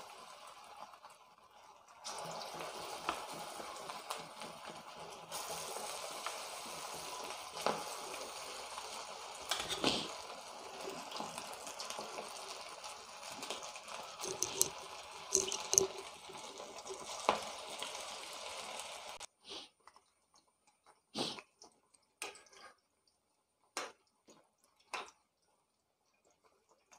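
Marinated chicken pieces deep-frying in hot oil in an iron kadhai: a steady sizzle with scattered crackles and pops. The sizzle cuts off suddenly about 19 seconds in, and a few brief clicks and scrapes follow.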